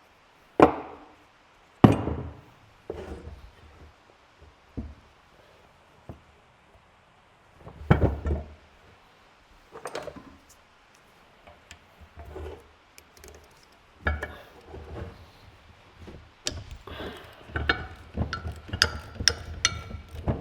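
Irregular knocks and clinks of heavy metal parts being handled and set down on a workbench, with a denser clatter in the last several seconds.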